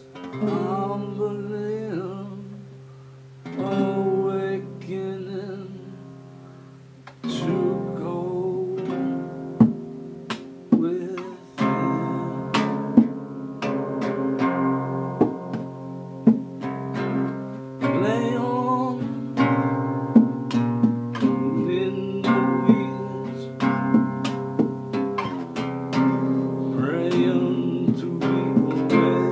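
Acoustic guitar played with a man singing over it. The guitar gets fuller and louder about seven seconds in.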